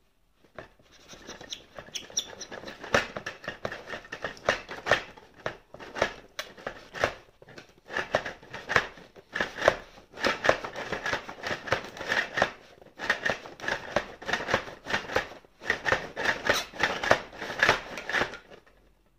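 Interlocking pyramid-faced blocks of a dry-stacked model wall clattering and clicking against each other as the wall is shaken and its sections shift. The rattling comes in dense runs with a few brief pauses and stops just before the end.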